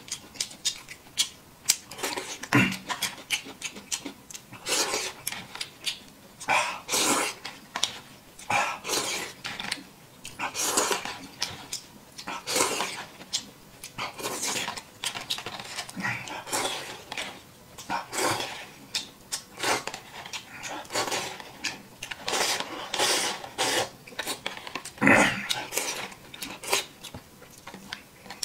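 A man slurping and chewing noodles, wet noisy slurps coming again and again with short pauses between them.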